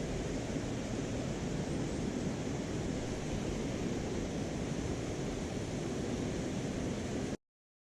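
Mountain stream water rushing steadily, cutting off suddenly near the end.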